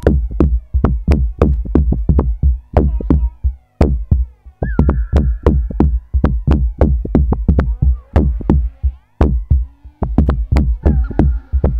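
Live electronic music from analogue synthesizers and a drum machine: a fast, even beat of sharp percussive hits over heavy bass, with a synth line of sliding notes. The bass drops out briefly twice.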